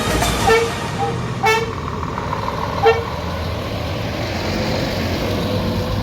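Truck horn giving several short toots in the first three seconds, then the steady sound of a truck's engine as it drives away.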